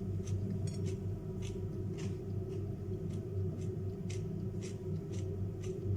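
Mouth chewing raw carrot and cucumber: short crisp crunches about twice a second, over a steady low hum.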